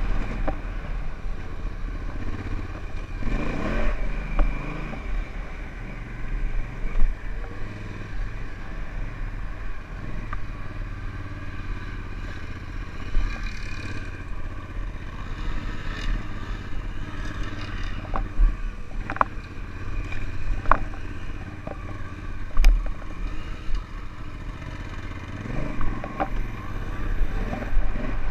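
Honda Africa Twin's parallel-twin engine running on a dirt trail, the revs climbing about four seconds in and again near the end. Scattered sharp knocks and rattles come through over the engine.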